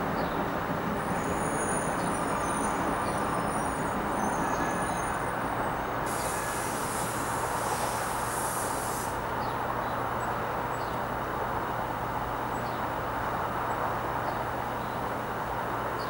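Distant city traffic making a steady roar with a low hum under it. A thin high squeal sounds about a second in and lasts a few seconds. A high hiss starts about six seconds in and stops abruptly some three seconds later.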